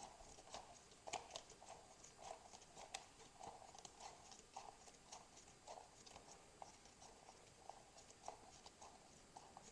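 Faint, irregular clicking and rubbing, about two clicks a second, from the recoil starter pulley of an Ariens 926LE snowblower being turned by hand to wind up its clock spring.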